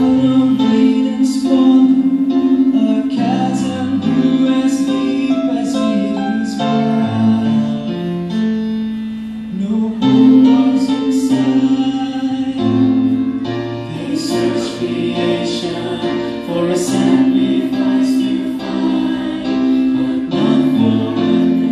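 Mixed group of men and women singing a slow gospel song into microphones, with piano accompaniment, in held sung phrases.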